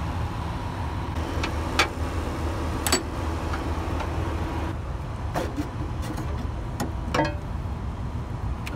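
A Freightliner Cascadia's Detroit DD15 diesel idling steadily, with a handful of short sharp clicks and knocks as the trailer is being unhooked.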